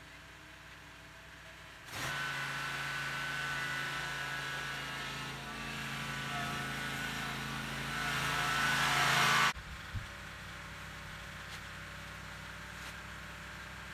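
Stand-on commercial mower's engine running as it carries bags of mulch off the trailer. The engine comes in suddenly about two seconds in, grows louder and then cuts off abruptly, leaving a faint steady background and one click.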